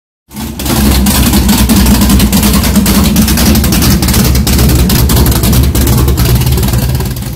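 Car engine running loudly and steadily with a low rumble, without rising or falling in pitch; it fades in within the first second and trails off near the end.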